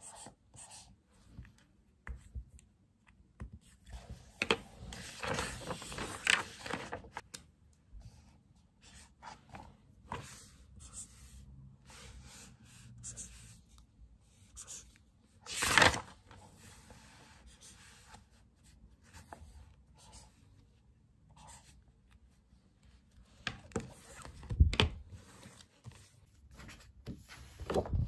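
Pen scratching on the paper of a workbook, with small clicks and paper handling. A louder paper rustle comes about halfway through, and a thump near the end.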